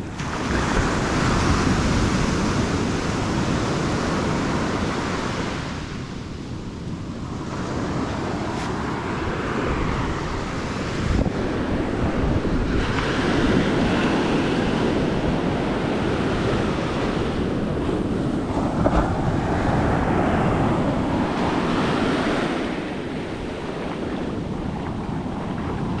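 Ocean surf breaking and washing up over the sand, swelling and easing every few seconds, with wind buffeting the microphone.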